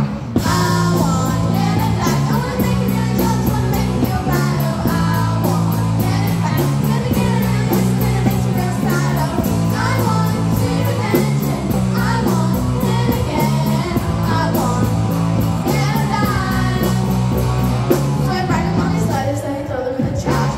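Live rock band: several girls singing together over electric guitar, a low bass line and drums keeping a steady beat.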